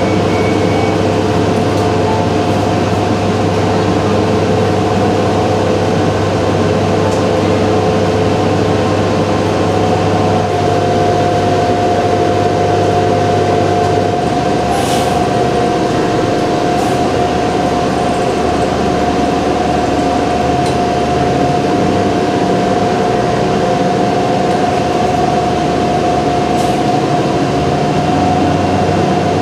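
Cabin noise inside a transit bus: the engine running with a steady low hum and a higher steady whine. The low note changes about halfway through, and there are a few brief clicks and rattles.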